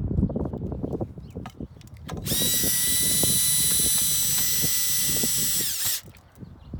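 Power drill driving a screw into a patio umbrella's hub to tighten it: small handling clicks and rattles, then about two seconds in the drill runs with a steady whine for about three and a half seconds, dropping in pitch as it stops.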